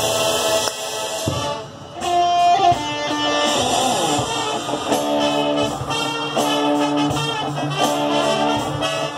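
High school marching band playing its field show: brass and front-ensemble chords, opening on a crash, dipping briefly about one and a half seconds in, then swelling back into held chords.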